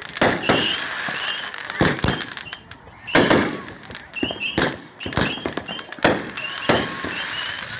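Consumer firework cakes firing: a run of sharp bangs about a second apart, with crackling in between.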